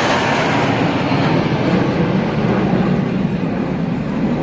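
Jet roar from a formation of military jets passing overhead, dropping in pitch and losing its high hiss as the jets move away.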